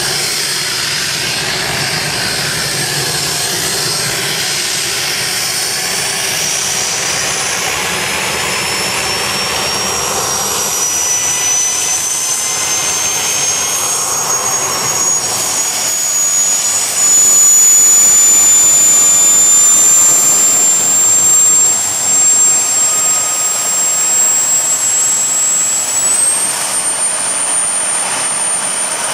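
Homemade jet engine built from a turbocharger, running with a high turbine whine that climbs slowly in pitch as it spools up and steps up again near the end. It grows louder a little past halfway through.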